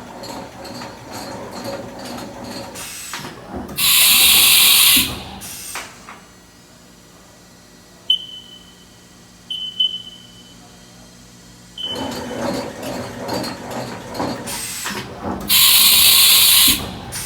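Haas VF-4B CNC vertical machining center running through a cycle: mechanical clatter with two loud bursts of hiss, each about a second long and some eleven seconds apart, and a few short high beeps between them.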